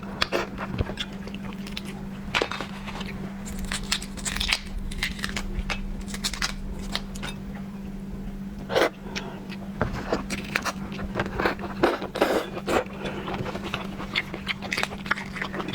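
Shellfish shell cracking and crackling as it is pulled apart by hand and eaten close to the microphone: irregular sharp clicks and crunches, some louder than the rest. A steady low hum runs beneath.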